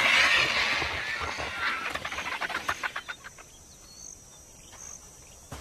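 Vultures squabbling on the ground: a harsh hissing at first, then a quick run of short sharp sounds, dying down to quiet in the second half.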